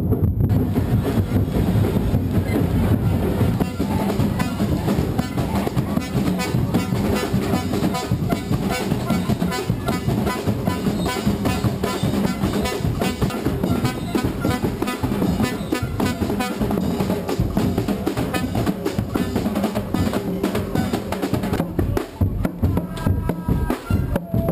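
Carnival drum group playing: many large drums beaten together in a steady, dense rhythm.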